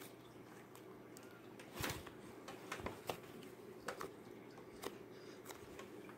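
Fingers poking and pressing into thick slime, giving faint scattered clicks and small pops, with a louder one about two seconds in.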